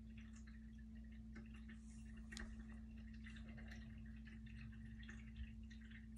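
Near silence: room tone with a steady low electrical hum and a few faint, scattered ticks.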